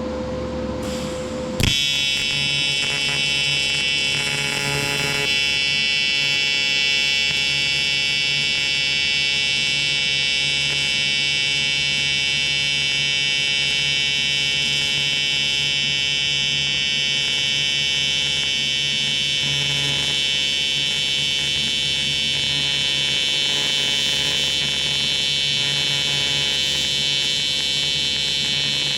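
AC TIG welding arc on aluminum from a PrimeWeld 225X, struck about two seconds in with a sharp click and then buzzing steadily while a bead is laid.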